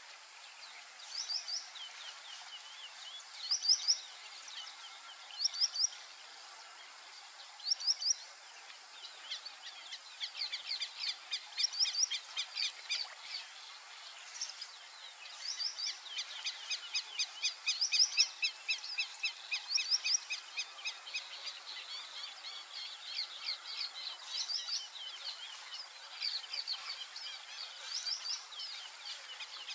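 Wild birds calling: a short high two- or three-note call repeated about every two seconds, joined from about ten seconds in by dense, rapid trilling from several birds.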